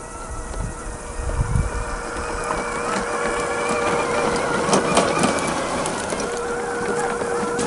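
Tamiya CC-01 scale RC car with a 55-turn brushed motor driving over rough ground: a steady whine from the motor and gears over tyres crunching and scattered small clicks and knocks, busiest around the middle.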